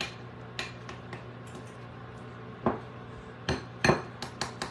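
A spoon clicking and knocking against a bowl as softened butter is mashed together with seasoning. There are scattered light clicks, a few louder knocks past the middle, then a quick run of taps, about four a second, near the end.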